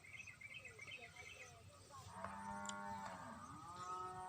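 Cow mooing twice: one long, level low call about two seconds in, then a second call that rises and holds near the end.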